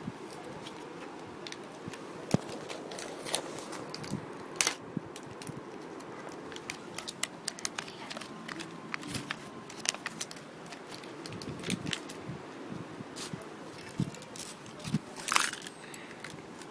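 Handling of a Tech Deck fingerboard and its plastic packaging: scattered small clicks, taps and crinkles, with a louder crinkle about fifteen seconds in.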